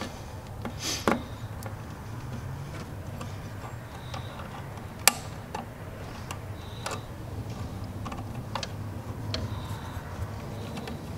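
Hand tool and spring hose clamp being worked onto a coolant hose at the throttle body: scattered light clicks and taps, one sharper click about five seconds in, over a steady low hum.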